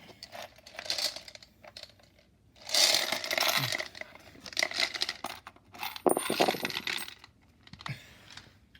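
Coins clattering and clinking as they are shaken out of a novelty gumball machine bank, in several rattling spills. The loudest are about three, five and six seconds in, the last with a few ringing clinks.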